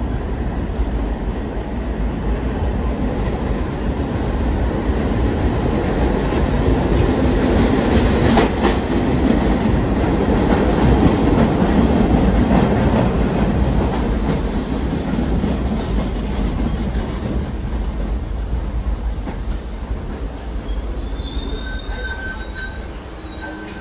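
New York City R68A subway train pulling into the station. It grows louder as the cars come alongside, then fades as the train slows to a stop, with short high squeals near the end as it halts.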